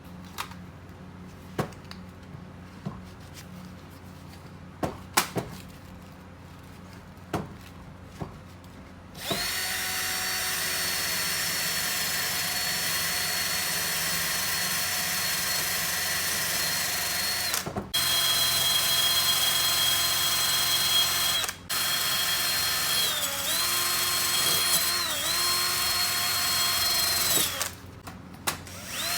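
A few light clicks and knocks, then a handheld electric power tool runs at high speed with a steady high whine. It cuts out briefly twice and dips in pitch a few times, as under load, before stopping near the end.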